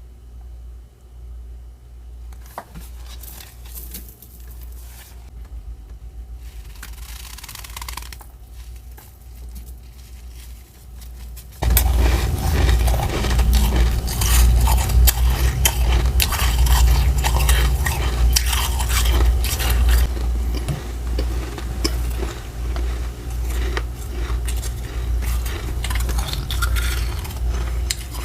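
Frost being scraped off the walls of a deep freezer. Faint, scattered scraping gives way about twelve seconds in to loud, dense, crunchy scraping that keeps going.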